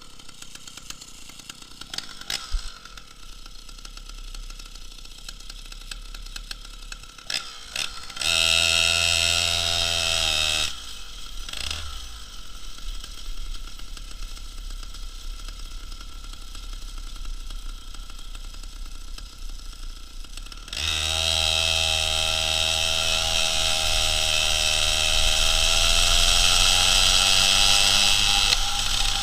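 Two-stroke chainsaw engine on a homemade moped, low at first, then opened up under load twice: a burst of about two seconds some eight seconds in, its pitch sagging before it is backed off, and a long pull from about two-thirds of the way through, its pitch dipping and then climbing.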